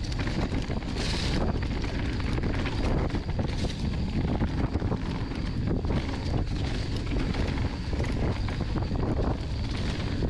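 Mountain bike descending a dirt trail: wind buffeting the microphone over tyre rumble and the bike clattering over bumps, with a brief hiss about a second in.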